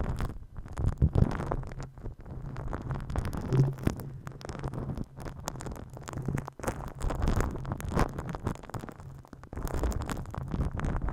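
Hands massaging the ASMR microphone: close, continuous rubbing against the mic with a scatter of small clicks.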